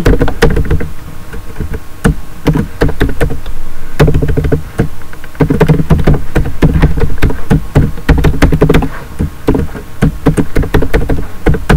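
Typing on a computer keyboard: a fast, uneven run of loud key clicks and knocks.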